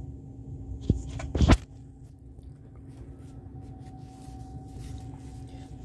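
Two short knocks, a light one just before a second in and a louder one about half a second later, over a steady low hum.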